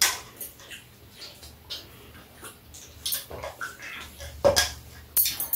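People eating close to the microphone: chewing and mouth noises, with a few sharp clicks of a spoon and chopsticks against bowls and the metal tray.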